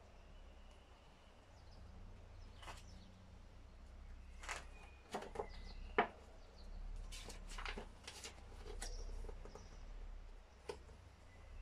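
Paper instruction booklet being handled and leafed through: scattered rustles and page flicks, with one sharp snap about six seconds in, over a steady low hum.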